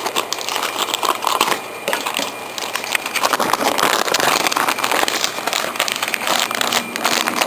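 Continuous crinkling and rustling handling noise, dense with small clicks.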